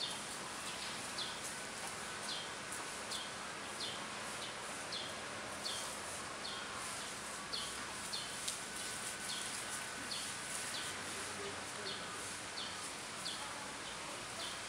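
A small animal's short, high chirps, each falling slightly in pitch, repeated about twice a second over a steady background hiss.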